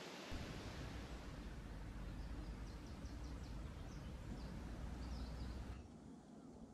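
Outdoor riverbank ambience: a steady low rumble with a few faint, short bird chirps. The ambience drops off sharply near the end.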